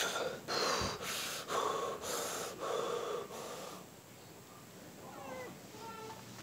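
A boy huffing sharp breaths in and out through his mouth, about two a second, for the first four seconds before they die away.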